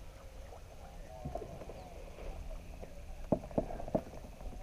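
Three light knocks on a kayak, in quick succession near the end, over faint wavering calls.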